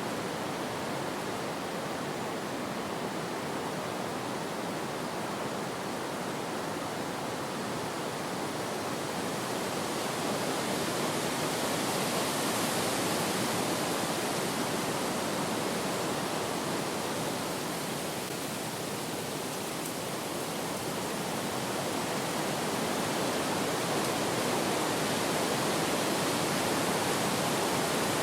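Wind blowing in a steady rush, swelling in a gust about ten seconds in, easing briefly, then building again near the end.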